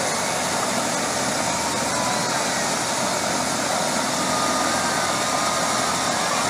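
Eurocopter AS350-type light helicopter running on the ground, its turbine and main rotor turning at a steady, loud level without change.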